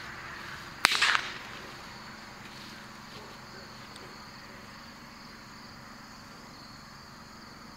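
A single sharp gunshot a little under a second in, with a short tail. Under it, a steady chirring of insects.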